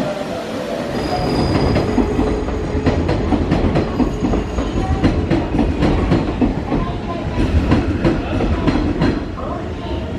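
Hanshin Railway electric train running on the track at a station platform: wheels clack in quick runs over rail joints above a steady low rumble.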